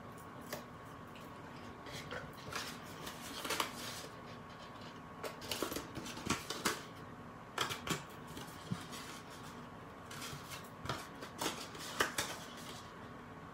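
Heavy kraft cardstock handled by hands while being folded into a box: scattered crinkles, rustles and light taps of stiff paper, coming in short irregular bursts.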